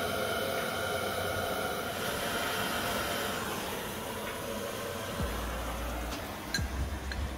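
Hand-held propane torch burning with a steady hiss as it heats a 1-inch 18-gauge steel tube to swage it out. The hiss fades out about halfway through, followed by a low rumble and a few light clicks near the end.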